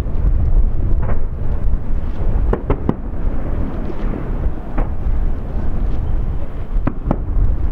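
Distant aerial fireworks bursting: sharp cracks over a continuous low rumble. There is a crack at the start, another about a second in, three in quick succession near the middle, one later, and two close together near the end.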